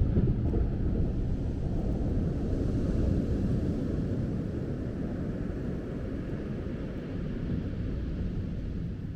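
Waves breaking on the beach: a low rumbling wash that swells suddenly and then slowly eases off.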